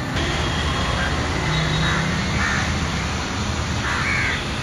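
A crow cawing several times in short, harsh calls, a few about two seconds in and another near the end, over steady background noise.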